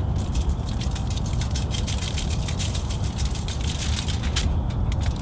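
Knife cutting a fresh leek into small pieces by hand, making quick light ticks and crunches, over a steady low rumble.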